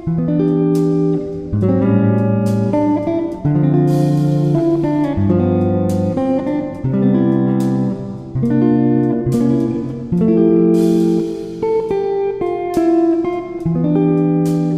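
Background music: a guitar piece, strummed and plucked chords changing about once a second.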